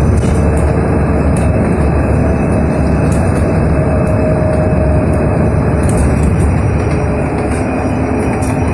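Inside a KAMAZ electric bus under way: a steady rumble of road and tyre noise, with faint steady whining tones from the electric drive.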